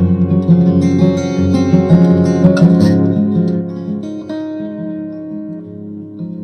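Acoustic guitar music playing through a speaker driven by a freshly built DIY audio amplifier kit on its first listening test. It gets quieter about four seconds in.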